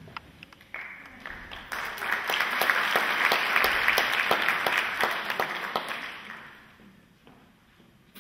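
Audience applauding, swelling about a second in and dying away near the end.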